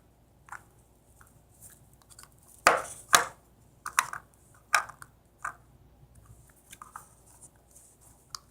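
Small plastic toy pieces handled and fitted together by hand: a series of irregular sharp clicks and taps, the loudest two close together about three seconds in.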